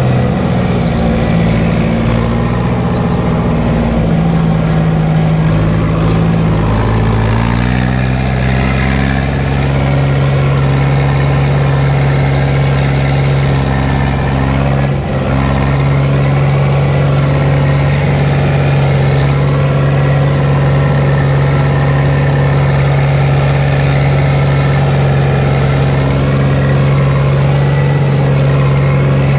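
Fiat 70-66 tractor's four-cylinder diesel engine running steadily, heard from inside the cab while mowing. The engine note shifts about seven seconds in, then holds steady.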